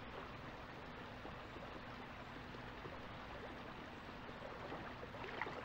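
Creek water running steadily, a continuous soft flow.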